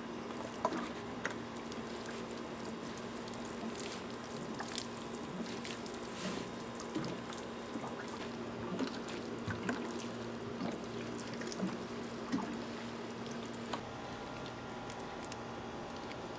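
Water dripping in irregular single drops over a steady low hum.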